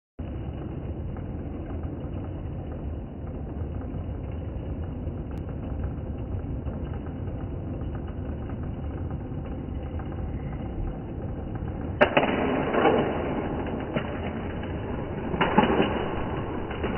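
A Hot Wheels spring launcher snaps about twelve seconds in, and a die-cast toy car rattles along the plastic track for about a second. A second short burst of plastic clatter follows a few seconds later, over a steady low background rumble.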